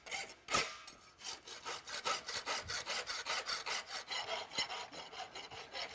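Farrier's rasp filing a steel horseshoe held in a vise: rough back-and-forth strokes of file on metal, two long ones at first, then quicker short strokes about four a second. It is the rasping that dresses the shoe's toe.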